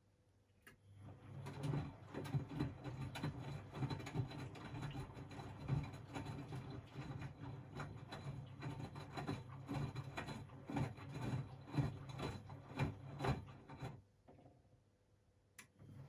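Miele W 426 front-loading washing machine in its wash phase: after a short pause the drum turns for about thirteen seconds, a low motor hum with the laundry and water swishing and clicking, then stops, and starts turning again near the end.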